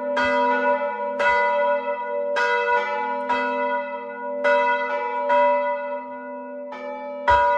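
A peal of four hand-rung church bells, the largest tuned to A (La3): about ten unevenly spaced strikes from different bells, each ringing on over the next, with the big bell's low tone humming underneath.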